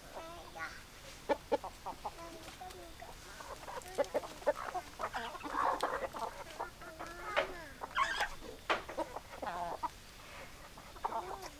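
Several hens clucking, with short overlapping calls and sharp clicks, busiest in the middle.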